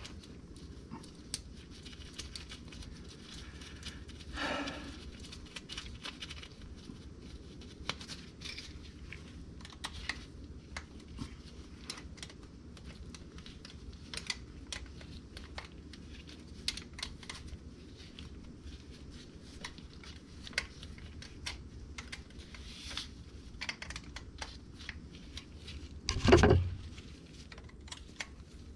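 Scattered small clicks and taps of gloved hands handling a replacement starter motor and its wiring at the solenoid terminals, with a brief louder rustle about four seconds in and a loud thump near the end.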